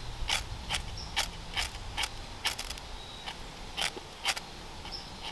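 Small ferrocerium rod built into a Swiss Army knife being struck again and again to throw sparks: short, sharp scrapes about two a second, with a brief pause about halfway through.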